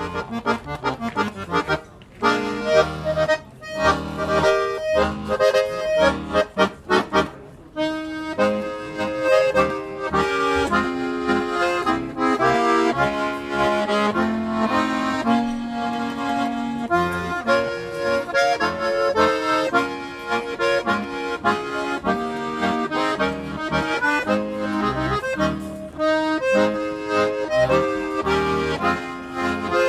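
Accordion playing a march, in short detached chords for the first several seconds, then a continuous melody.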